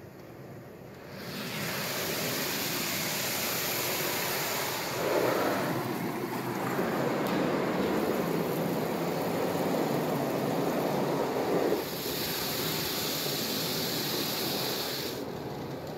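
High-pressure water jets of a D&S IQ touch-free car wash spraying over the car, heard from inside the cabin as a steady rushing hiss. It starts about a second in, is heaviest through the middle, turns thinner and hissier later, and dies away at the end.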